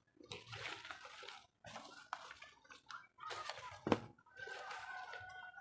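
Paper banknotes rustling as they are handled in a cardboard box, in short scattered bursts, with one sharp knock about four seconds in.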